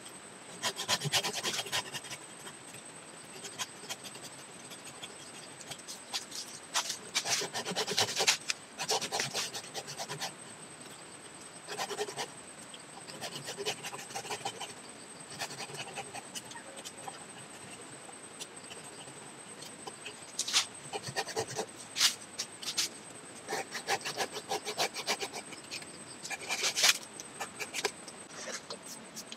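Small hand pruning saw rasping against lychee bark and wood. It comes in short, uneven bouts of strokes with pauses between them.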